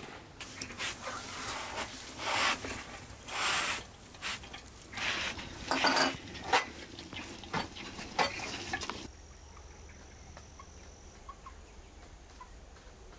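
A cloth rubbed in a series of uneven wiping strokes across the top of a cast-iron wood stove. About nine seconds in the wiping stops and only a faint background with a thin high tone remains.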